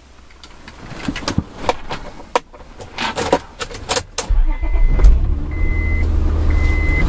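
Keys jingling and clicking, then the vehicle's engine starts about four seconds in and keeps running. A dashboard warning chime beeps about once a second as it runs.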